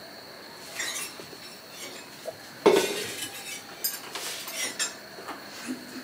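Kitchen clatter: a steel pot and metal utensils clinking and knocking on the counter. There is one loud clunk a little under three seconds in, and lighter clinks scattered around it.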